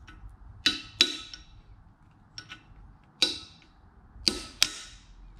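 A hammer drives a punch against the side of a brass-lipped freeze plug in a Ford 4.6 Teksid engine block. There are five sharp metallic strikes with a short ring after each, and two light taps between them. The blows knock the plug sideways so it spins in its bore, ready to be pried out.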